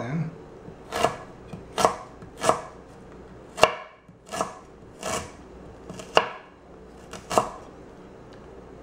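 Chef's knife slicing fresh ginger on an end-grain wooden cutting board: about ten separate knife strikes, roughly one a second, that stop about a second before the end.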